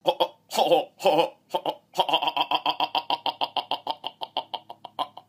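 A man's voice making a few short vocal sounds, then a fast, even stutter of one repeated 'ah' syllable, about nine a second, for some three seconds, which stops abruptly.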